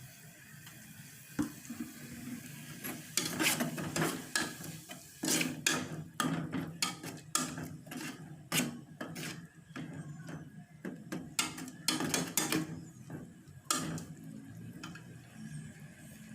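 Kitchen utensils knocking and clinking irregularly against cookware, a quick run of sharp knocks and scrapes for most of the stretch, over a steady low hum.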